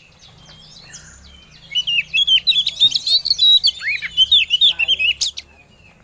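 Oriental magpie-robin (kacer) song: a fast, varied run of chirps and short whistles that starts about two seconds in and stops sharply about three and a half seconds later. Given out as a female calling to a male, for use as a breeding-season lure.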